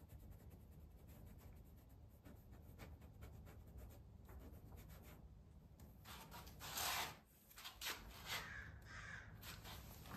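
Faint scratching of a fine paintbrush laying oil paint on canvas. About six and a half seconds in, a crow caws several times, loud and harsh, the first call the loudest.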